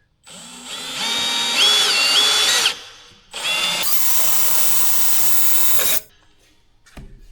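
Electric drill boring a crack-stop hole into an aluminum wheel at the end of a crack. It runs twice, for about two and a half seconds each time, with a short pause between, and the whine steps up in pitch during the first run.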